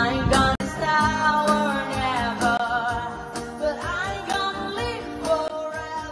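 Background music with a steady beat and a melody line.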